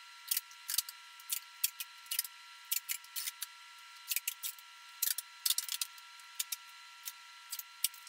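Duct tape being pulled off the roll and wrapped around a fridge handle: short, irregular crackles and rips, about two a second.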